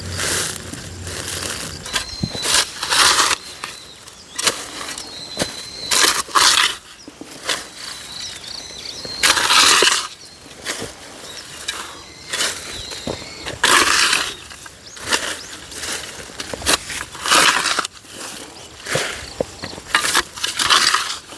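Repeated crunching, scraping strokes roughly once a second, each about half a second long: a garden hand tool such as a hoe or rake working dry soil. A faint insect chirping runs under them.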